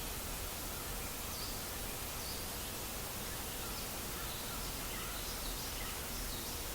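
Steady white-noise hiss with faint, short birdsong chirps scattered over it every second or so.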